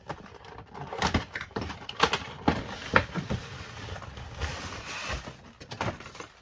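Cardboard toy box and its plastic packaging being handled and opened, with irregular clicks, taps and rustling scrapes.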